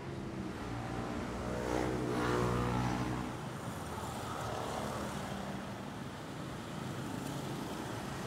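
A motor vehicle engine running steadily, strongest in the first three seconds and then fading a little.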